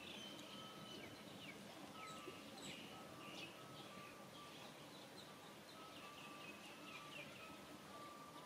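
Faint outdoor ambience of birds chirping: many short, high chirps that fall in pitch, with a lower short note repeating a couple of times a second, over a steady faint hiss.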